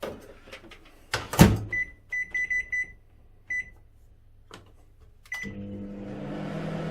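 Microwave oven being set and started: a thud as the door is shut, a quick run of keypad beeps, two more single beeps, then the oven starts up about five seconds in with a steady hum.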